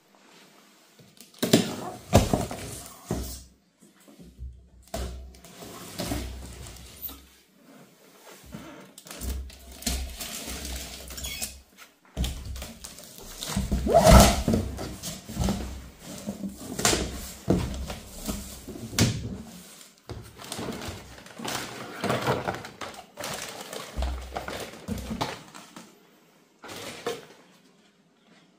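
Cardboard box being opened and unpacked: irregular thumps, scrapes and rustling of cardboard flaps and packing inserts, loudest about halfway through.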